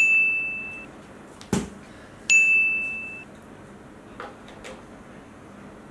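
A bell-like 'ding' sound effect, sounding twice about two seconds apart: each a single high steady tone that starts sharply and fades over about a second. A short knock falls between the two.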